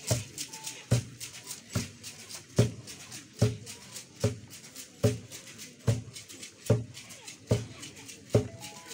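Traditional tall wooden drum beaten in a slow, even beat, a little over one stroke a second, with rattles ticking lightly between the strokes.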